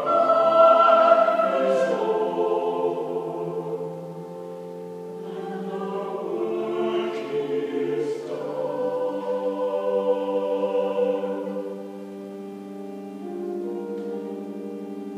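Church choir of men and women singing in slow sustained chords, with soft hissing consonants here and there; the singing drops to quieter held chords twice, about four seconds in and again in the last few seconds.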